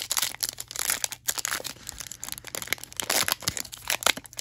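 Trading-card pack wrapper being torn open and crinkled in the hands: a dense run of crackles and rustles.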